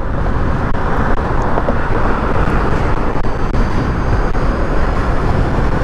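Steady wind rush and road noise at about 55 mph on a Zero SR electric motorcycle; its motor is almost inaudible under the wind.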